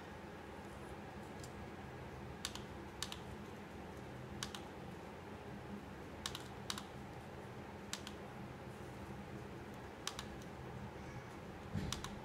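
Computer mouse button clicks: single sharp clicks spaced a second or two apart, with a pair close together about a second from the end, over a steady low hum.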